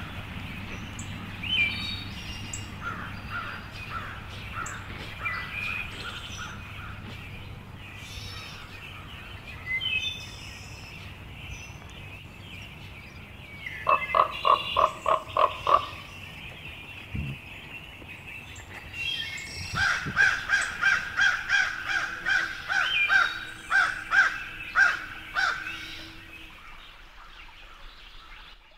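Crows cawing outdoors: scattered bird chirps at first over a low steady hum, then a quick run of loud caws about fourteen seconds in and a longer series of repeated caws from about twenty to twenty-six seconds.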